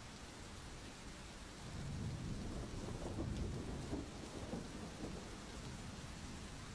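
Steady rain with a low rumble of thunder that builds about a second and a half in and eases after about four seconds.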